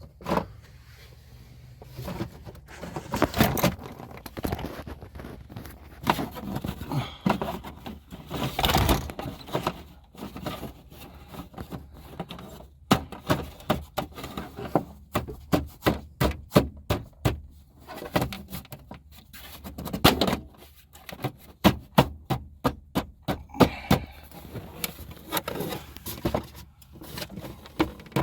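Hand tools and trim parts being handled during reassembly around the truck's accelerator pedal: scrapes and knocks, then from about halfway runs of quick sharp clicks, several a second, as screws are driven in to refit the side panel.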